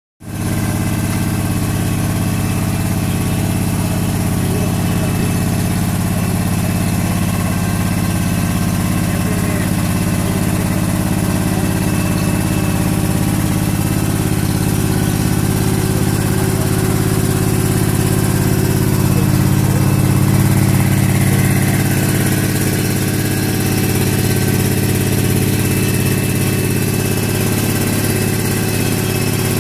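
Engine of a GK Machine strawberry harvest-aid rig running steadily at constant speed, an even low hum that grows slightly louder around twenty seconds in.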